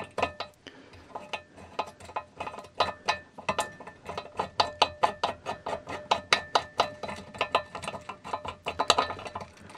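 Quick metallic clicking, about three to four clicks a second, each with a short ring, as a threaded, spring-loaded adjustment knob is turned out of a Burgess BBS-20 bandsaw's cast frame.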